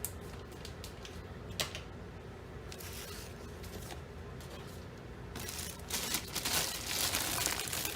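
Unboxing handling sounds: a few light clicks and taps of small items, then from about five seconds in, a continuous rustling and crinkling of packaging.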